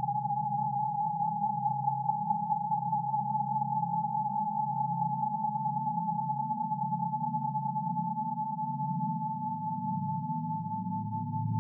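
A single steady pure electronic tone held unbroken over a low, wavering drone.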